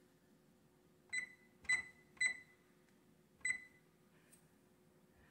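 Kenmore Elite 790 oven's electronic control panel beeping as keypad buttons are pressed to set the clock: four short, high-pitched beeps, the last one after a longer pause. A faint steady hum sits underneath.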